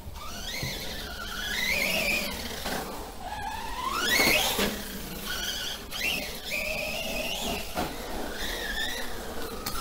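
Remo Hobby Dinosaurs Master 5 RC monster truck's brushless motor and gears whining, rising and falling in pitch as the throttle is worked. The loudest, steepest rise comes about four seconds in.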